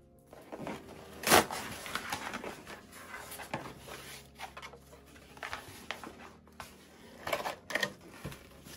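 A cardboard box being opened by hand: packing tape torn from the top and the flaps pulled open, then a white packing insert scraped against the cardboard, in a run of irregular rips, crackles and rustles. The loudest rip comes about a second in.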